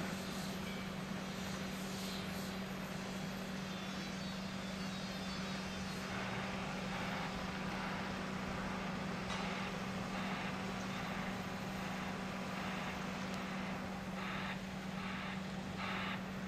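Heavy diesel engines of a Caterpillar 352 excavator and a Bell B30E articulated dumper running with a steady low drone. Near the end there is a series of short, evenly spaced noisy bursts over it.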